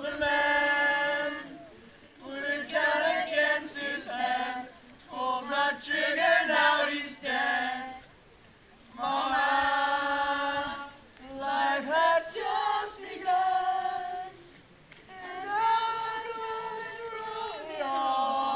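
Voices singing without accompaniment, holding long notes in a series of sung phrases with short breaks between them.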